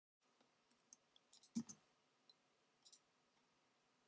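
Near silence with a few faint, short computer clicks, the loudest about one and a half seconds in.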